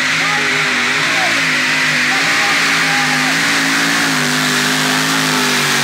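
Pulling tractor's engine running at high revs, its pitch holding fairly steady with small rises and falls.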